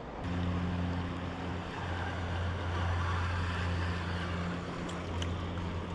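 An engine running with a steady low hum that holds one pitch throughout, with no rise or fall in speed.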